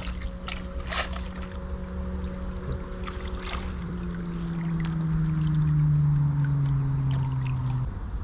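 Engine hum that slides slowly down in pitch and grows louder in the second half before stopping shortly before the end, as from a passing motor vehicle or boat. Light water splashes and drips come from a wet cast net being handled in the water.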